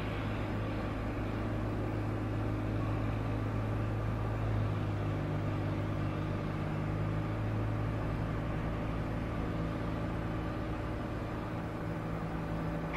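Twin piston engines of a Beechcraft Baron 58 running at taxi power, a steady low drone whose note shifts slightly about five seconds in.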